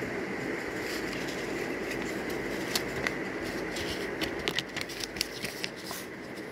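Irregular clicks and taps, most of them between about three and six seconds in, as a geometry box and its cardboard packaging are handled, over a steady background hum.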